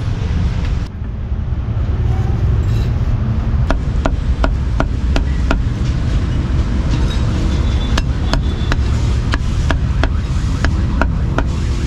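Meat cleaver chopping cooked pork offal on a wooden chopping block: a run of sharp knocks, two or three a second, starting a few seconds in. Underneath is a low, steady rumble of street traffic.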